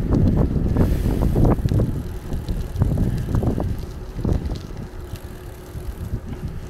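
Wind buffeting the microphone of a handlebar-mounted camera on a moving bicycle, with tyre rumble on asphalt and small irregular rattles and knocks. It is loudest in the first few seconds and eases after about four seconds.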